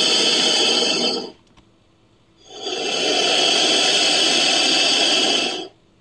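Invented monster-creature call, a sound effect made from crocodilian and Nanotyrannus recordings: a harsh, noisy growl that stops about a second in, then after a short pause a second, longer growl of about three seconds.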